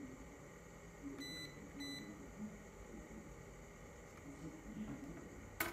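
Two short electronic beeps about half a second apart, a little over a second in, then a single sharp click near the end, over a faint low murmur of voices.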